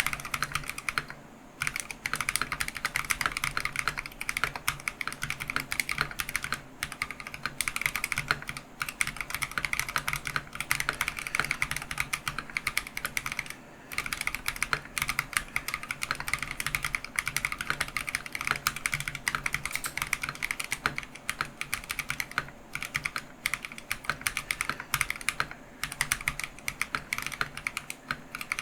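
Steady fast typing on a Keychron V1 mechanical keyboard fitted with lubed Akko Matcha Green switches: a quick run of keystrokes, broken by a few short pauses.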